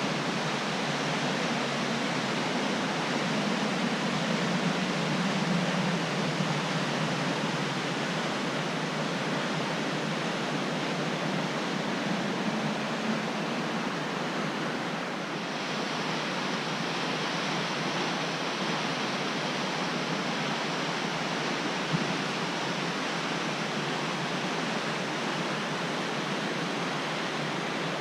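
Steady rush of a waterfall's falling water. About halfway through it changes abruptly to a slightly different, brighter rush.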